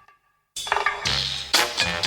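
Background music: after a brief silence, a new track kicks in with a steady beat, in a swing or funk style.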